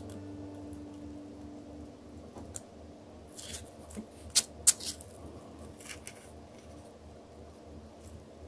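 Packing foam pieces handled on a wooden board while being cut on hot nichrome wire: scattered scratchy rustles and sharp clicks, two of them loudest about halfway through. A last held musical note fades out in the first couple of seconds.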